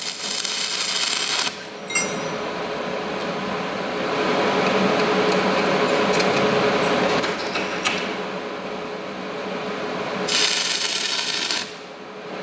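Stick welder arc crackling steadily as a nut is filled with weld onto the stub of a broken bolt. The arc breaks off for a moment about a second and a half in, flares brighter again near the end, then drops away just before the end.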